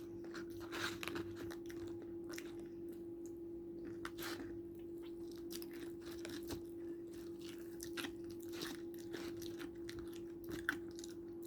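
Close-up mouth sounds of a person eating fried chicken: irregular crunches, bites and wet chewing. A steady low hum runs underneath.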